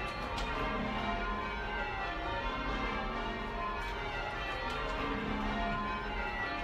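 A ring of ten church bells being rung in changes: an unbroken stream of overlapping bell strokes, heard from inside the ringing room.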